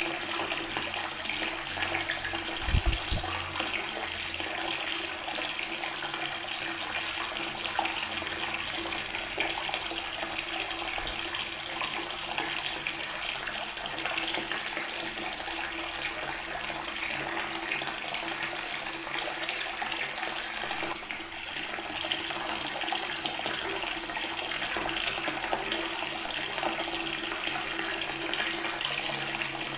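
Water pouring steadily from a tap and splashing onto natural stone, a continuous even splashing rush. A brief low bump sounds about three seconds in.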